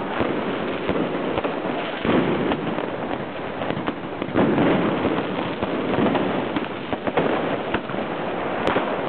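Fireworks and firecrackers going off at close range: a dense, continuous string of bangs, pops and crackles, with a louder burst about halfway through.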